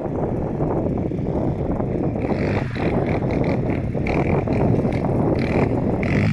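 Yamaha Raptor 700 quad's single-cylinder engine running as it is ridden, with wind noise on the microphone. A higher engine note comes and goes repeatedly from about two seconds in.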